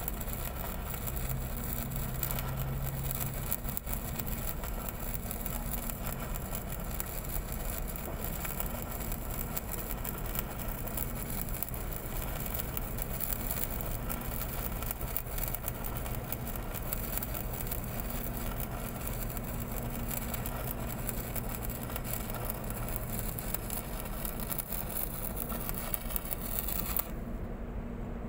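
Electric arc welding on a large steel pipe joint: the arc crackles and hisses steadily over a steady low engine hum. The arc cuts off suddenly near the end, leaving only the hum.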